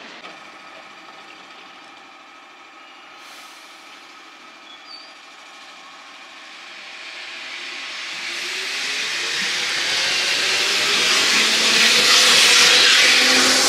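An electric train draws close, its rail noise growing much louder over the second half while a motor whine rises in pitch as it speeds up. Before that, fainter rail noise dies away from an earlier train.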